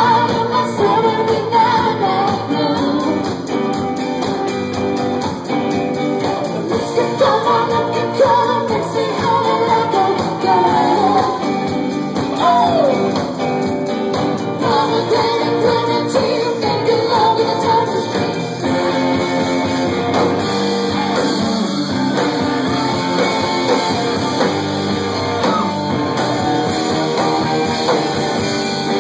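A rock band playing a song, with singing over electric guitar, bass, keyboards and drums.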